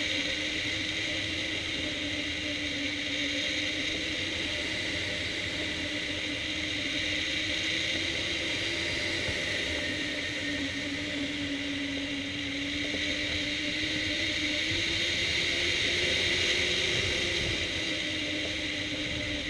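Steady rush of air past a hang glider in flight, with a humming tone that slowly wavers up and down in pitch and slides lower near the end.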